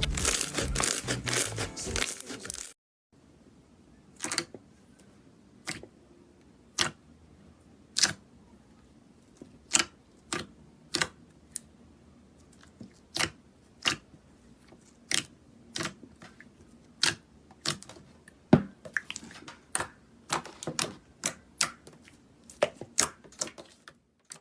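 Slime being handled: a series of short, sharp crackling clicks, roughly one a second, from air pockets popping in the slime. Music plays briefly at the start, then cuts off.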